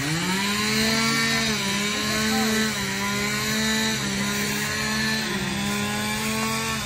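Chainsaw revving up sharply and running at high speed, its pitch holding with small dips and steps as it works. It drops off abruptly at the end.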